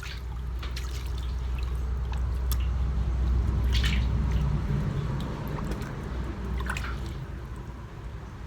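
Running water splashing and dripping over a steady low rumble, with a few sharper splashes.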